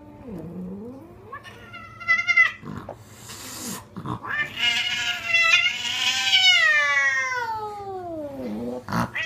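Domestic cat yowling defensively at a stuffed toy cat: a low moan, a short higher yowl, a hiss about three seconds in, then a long yowl that slides down in pitch.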